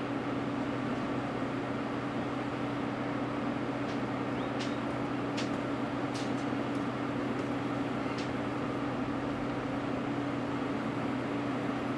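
Diesel engines of Cat hydraulic excavators running under working load, a steady drone without let-up. A few short sharp clicks stand out about halfway through.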